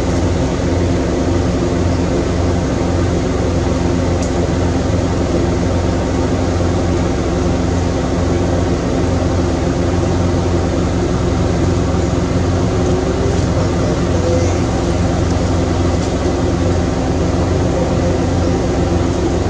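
A steady, loud mechanical drone with an unbroken low hum, like a motor or engine running.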